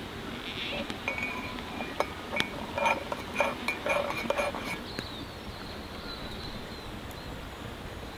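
Water poured from a black camp kettle into ceramic mugs, with light clinks of kettle and mug, from about one to five seconds in. Then quiet outdoor background.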